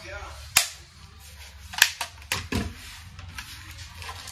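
Plastic clicks and knocks as an HP 15 laptop's bottom base panel is snapped into place and the laptop is handled on the desk: a few sharp snaps, the loudest nearly two seconds in.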